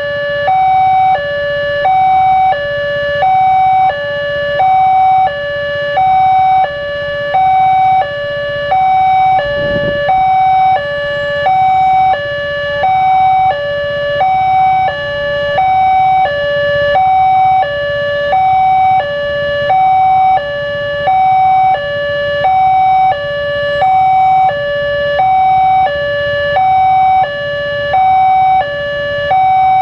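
Electronic railway level-crossing warning alarm, the crossing's new double alarm, sounding steadily while the barrier is down. A higher and a lower note alternate, each lasting a little under a second.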